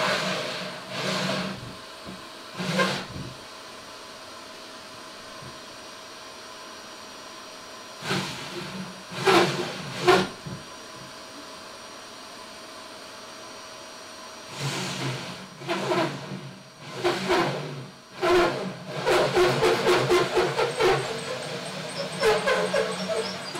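Power drill with a large hole saw cutting into the top of a boat console, run in short bursts early on and then in a longer, choppier stretch from about two-thirds of the way in. The stops and starts fit a big hole saw fed carefully because it tends to grab.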